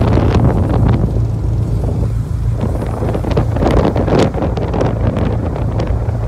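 Wind gusting and buffeting the microphone over the steady low drone of a tugboat's engine as it tows a loaded barge.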